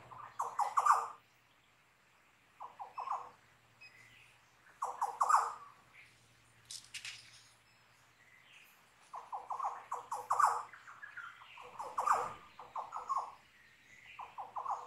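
Wild Australian birds calling in bushland. Bursts of rapidly repeated notes, each about a second long, come every couple of seconds, with thin high chirps in between.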